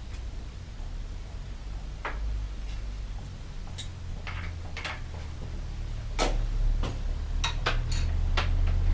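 Scattered metallic clicks and knocks of a bicycle and tools being handled during brake-pad work, the loudest about six seconds in and a quick run of clicks near the end, over a steady low hum.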